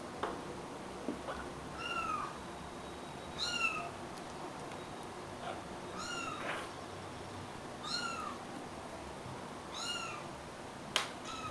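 Three-week-old kitten mewing: five short, high-pitched mews about two seconds apart, each rising then falling in pitch. A few sharp clicks, the loudest near the end.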